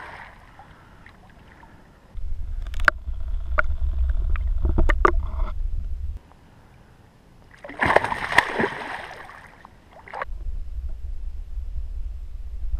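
Muffled low rumble of water moving around a submerged action camera, with scattered clicks and knocks. A sharp splash comes about eight seconds in, then the muffled underwater rumble resumes.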